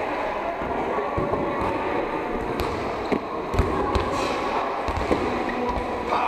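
Soft balls being volleyed and caught by several pairs practising volleyball sets, heard as scattered light thuds and slaps. They echo in a large sports hall over faint, distant voices.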